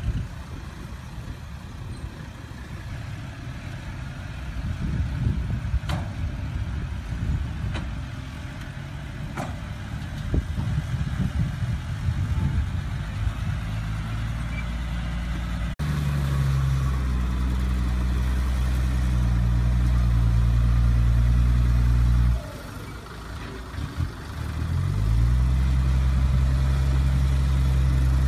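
Diesel engine of a ten-wheel dump truck: an uneven low rumble at first, then a steady low drone from about 16 s in that drops away briefly and climbs back up in pitch before holding steady again.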